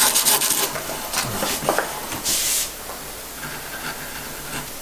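80-grit sandpaper rubbing back and forth on the bowl of a carved wooden spoon in quick strokes that stop after about half a second. One more short sanding stroke comes about two seconds in, then only faint handling sounds.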